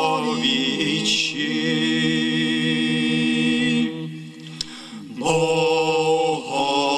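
Male vocal ensemble chanting a late-medieval Marian hymn in Gregorian-chant style over a steady low held note. The singing drops away briefly just after four seconds in and resumes about a second later.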